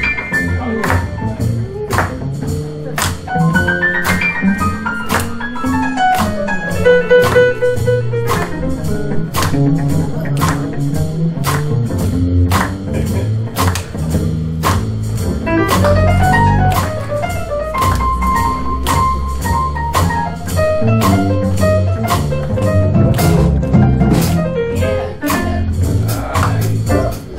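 Live small-group jazz: piano, plucked double bass walking underneath and a drum kit with a steady ride cymbal, while fast melodic runs rise and fall over the top.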